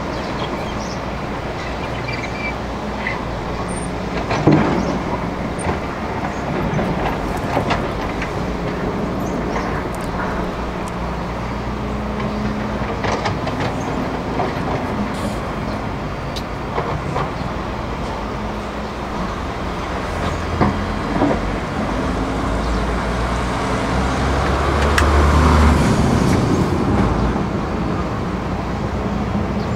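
Hydraulic excavator's diesel engine running under changing load as it digs and swings in a river, with occasional knocks of stone against the bucket over the steady rush of water. The engine grows louder near the end.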